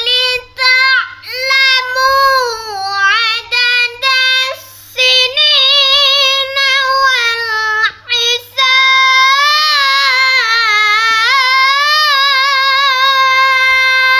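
A boy reciting the Qur'an in the Hijaz maqam at a high pitch, chanted with ornamented, bending melodic turns. Short phrases with brief breaths come first, then from about two-thirds of the way through one long, unbroken phrase.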